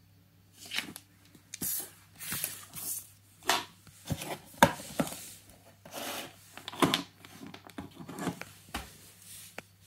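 Paper inserts from a mouse box, a booklet and a folded manual, being handled, rustled and set down on a table, with a few sharp taps among the rustling.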